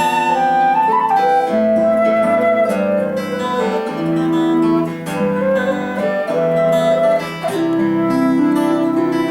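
Instrumental Celtic folk music: a flute plays a held, flowing melody over plucked Celtic harp.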